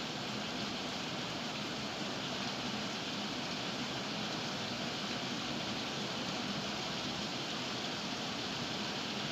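Heavy rain falling steadily, a constant even hiss with no let-up.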